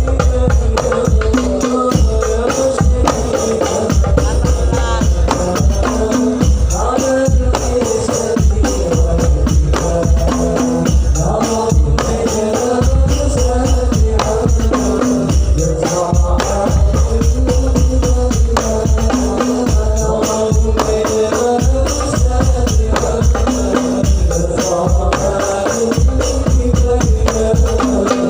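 Instrumental music with jingling frame drums and deep drum beats keeping a steady rhythm under a melody line.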